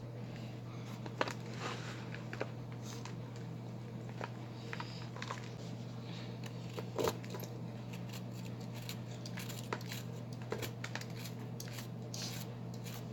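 Compacted balls of Ajax and Foca cleaning powder being crushed, giving scattered small crunches and crackles. The loudest come about a second in and about seven seconds in. A steady low hum runs beneath.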